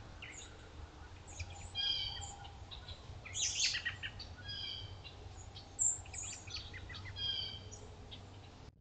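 Wild birds calling: three bouts of short, rapid, chattering call notes a couple of seconds apart, over a faint steady low hum.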